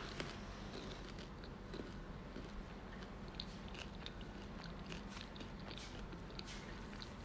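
Someone chewing food close to the microphone: faint, irregular small crunches and clicks over a low steady room hum.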